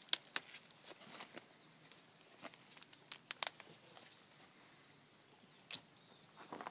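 Skin and sinew tearing and wing feathers rustling as the wings are worked off a skinned grouse breast by hand: a scatter of sharp crackles and snaps, loudest just after the start and in a cluster about three seconds in.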